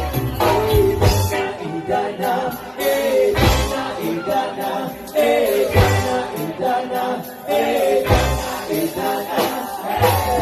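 A song with a singing voice over bass and percussion.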